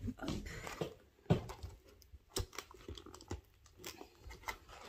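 Cardboard diamond-painting kit box being handled: a run of irregular small knocks, taps and scrapes, with one sharper knock about a second in.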